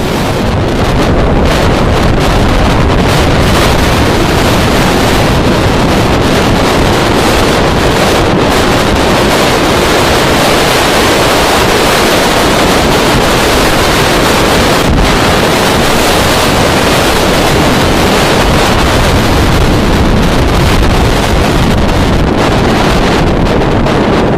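Strong wind buffeting the microphone: a loud, steady rush of noise heaviest in the low end.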